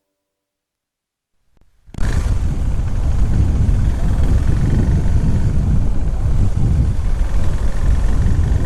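Silence, then about two seconds in a loud, steady rumbling noise cuts in suddenly: wind buffeting the microphone mixed with vehicle noise.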